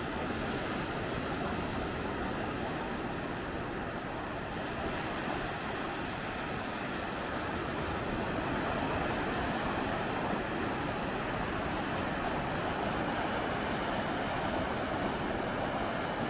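Sea waves breaking and washing on a beach, a continuous rushing surf that grows a little louder about halfway through.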